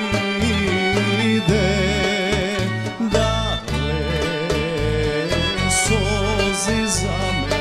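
Live Macedonian folk-pop song: a male voice sings a wavering, ornamented melody over bass guitar, electric guitar and drums, with bright cymbal or tambourine shimmer near the end.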